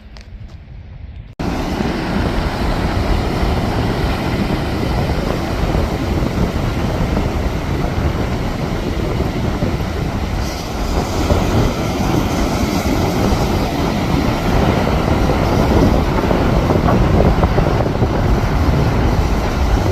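Strong wind buffeting the microphone, a loud, gusting rumble that cuts in suddenly about a second and a half in.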